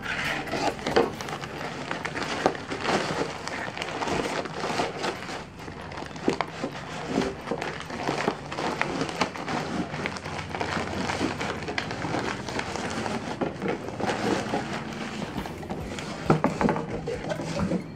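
Cardboard box and packaging of a camcorder tripod being handled and opened by hand: continuous rustling and crinkling with many small clicks and scrapes.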